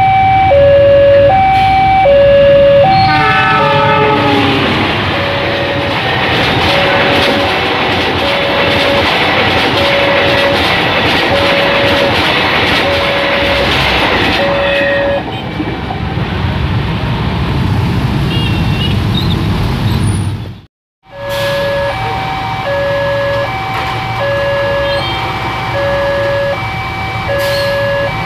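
A level-crossing warning alarm chiming two alternating notes over and over, about two notes a second, as a passenger train passes. The train's horn sounds about four seconds in, falling in pitch, then the rush of the train's wheels on the rails runs for about ten seconds and fades. After a moment's silence, the two-note alarm carries on.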